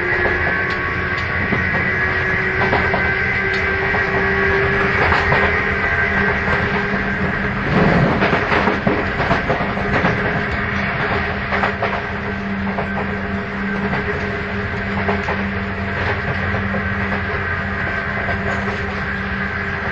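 Sotetsu 8000 series motor car MoHa 8107 running at speed, heard from inside, with the unusual jet-engine-like whine this car is known for: several steady whining tones, one edging up slightly in pitch in the first few seconds, over rail-joint clicks. About eight seconds in there is a brief louder rush.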